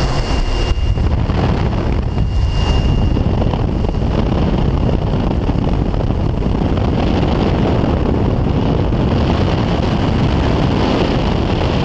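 Steady rush of wind and slipstream buffeting the camera microphone at the open door of a small high-wing aircraft in flight, with the aircraft's engine running underneath.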